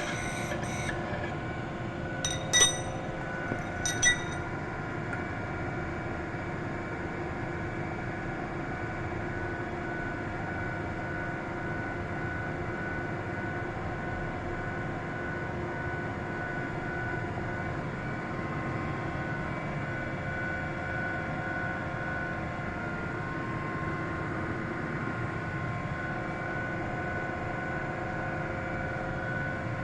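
Centerless grinder running, a steady machine hum with several constant tones. A few sharp metallic clinks come about two and a half and four seconds in.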